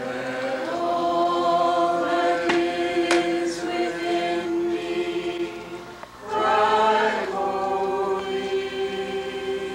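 Church choir singing in long held phrases, breaking off briefly about six seconds in before the next phrase begins.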